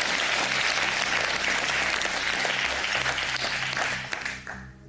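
Studio audience applauding, dying away near the end.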